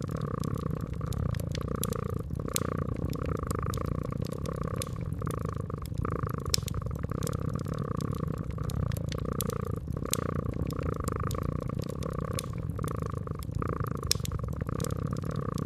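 Cat purring steadily, a low rumble that swells and eases with each breath, under frequent sharp crackles and pops from a wood fire.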